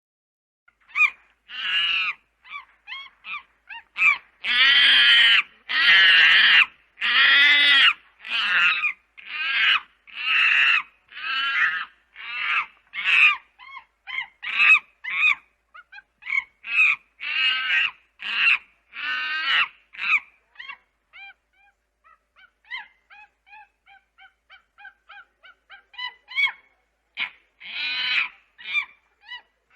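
Monkey calls from a sound effect raised in pitch: a long series of loud screeching calls, the loudest ones just after the start. They thin out into faint quick chattering about two-thirds of the way through, and a few loud calls come back near the end.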